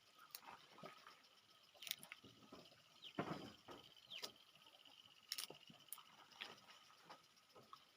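Close-miked mukbang eating sounds: soft clicks and crunches of peanuts being shelled and chewed, scattered and irregular, with a louder crunch about three seconds in.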